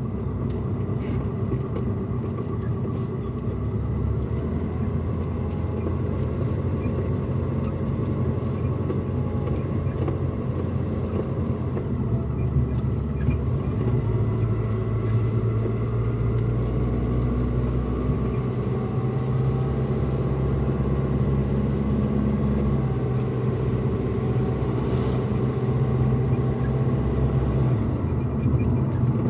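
Pickup truck cabin noise while driving: a steady low rumble of engine and road heard from inside the cab, its engine pitch shifting slightly over the stretch.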